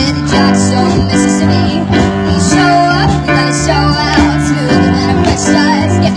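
Live band music: electric guitars, drum kit and keyboard playing over a steady, repeating bass line.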